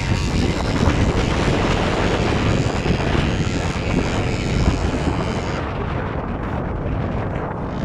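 ATV engine running hard under load as the quad climbs a steep, sandy hill. About two-thirds of the way through, the sound grows duller and a little quieter as the climb ends at the crest.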